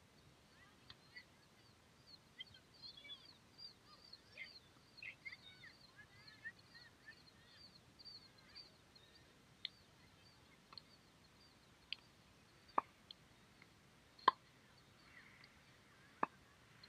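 Birds chirping for the first several seconds. Then tennis balls are struck by rackets and bounce on the hard court, a sharp pop every second or so, the loudest three near the end.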